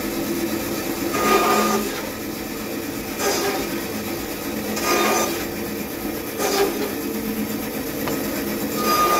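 Bandsaw running steadily while it cuts joints into small pieces of timber, with a louder rasping cut five times as pieces are pushed through the blade.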